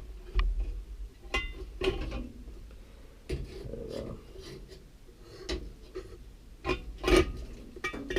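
Metal clinks and knocks as steel bolts are tried between the louvers of a combine's chaffer to gauge its opening. There are several sharp, briefly ringing knocks, the loudest about seven seconds in.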